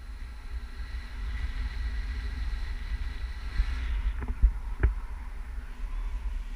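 Wind buffeting the microphone of a handheld action camera in flight under a tandem paraglider: a steady low rumble with a rushing hiss over it. Two or three sharp knocks come about four to five seconds in.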